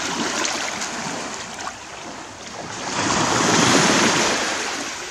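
Small waves washing onto a rocky shore: a steady hiss that swells about three seconds in and fades again.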